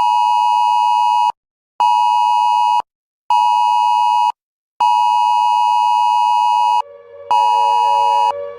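Electronic alert tone of an emergency broadcast, beeping on and off: a two-second tone, two one-second beeps, another two-second tone, then further one-second beeps. Soft music comes in underneath near the end.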